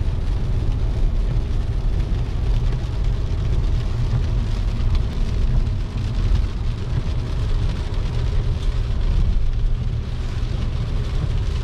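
Cabin noise of a Fiat car driving at speed on a wet road in rain: a steady low road and engine rumble with the hiss of tyres on wet asphalt and rain on the car.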